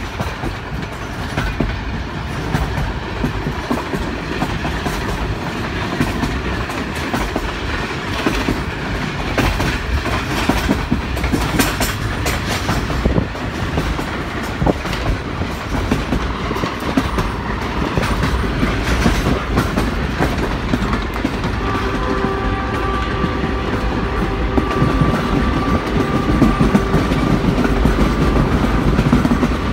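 Train running along the track, heard from aboard: a steady rumble and clatter of wheels on the rails. From a little past twenty seconds, a held tone at several pitches at once sounds over it for about six seconds.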